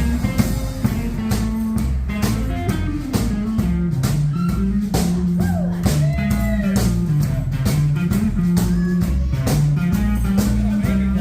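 Instrumental break in a band's song: a guitar lead with bent notes in the middle, over a moving bass line and a steady drum beat.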